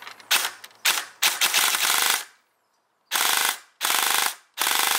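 Electric airsoft AK (AEG) firing full-auto: several bursts of rapid buzzing fire, two brief ones, then one lasting about a second, a silent gap of about a second, and three more, the last about a second long. The gearbox shimming sounds very good.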